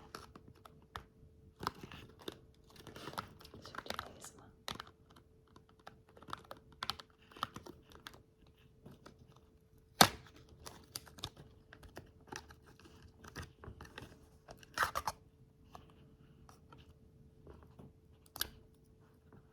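Makeup products and their packaging being handled and opened: scattered small clicks and bouts of rustling, with one sharp click about ten seconds in. A faint steady hum runs underneath.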